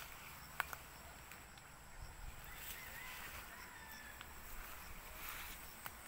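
Quiet forest ambience with footsteps through undergrowth: two sharp twig-like snaps about half a second in and another near the end, with a faint bird call in the middle.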